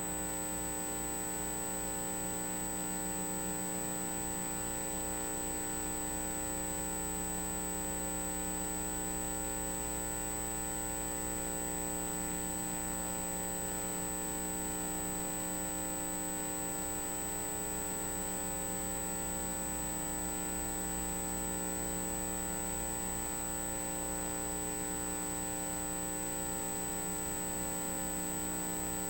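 Steady electrical hum with a thin high-pitched whine above it, unchanging throughout and with no beat or pulse in it.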